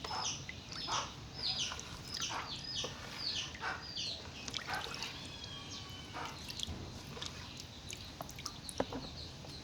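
Chickens calling: a run of short, sharp, falling clucks and chirps about every half second, thinning out after the first few seconds, with a few thin gliding chirps in between.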